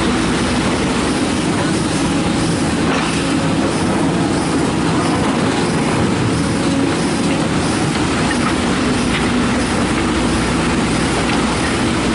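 Kobelco SK130 hydraulic excavator running steadily, its diesel engine and hydraulics working as the operator moves the control levers. The sound is loud and even, with no pauses.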